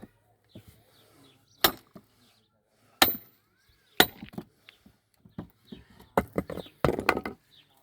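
Sledgehammer striking a steel wedge driven into a log: three hard blows, the later two with a metallic ring, then a quick run of knocks and cracks near the end.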